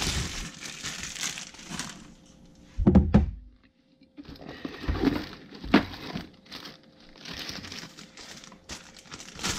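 Clear plastic wrapping crinkling and a nylon soft tool bag rustling as hands handle plastic-wrapped cordless tools inside it. There is a heavier knock of handling about three seconds in.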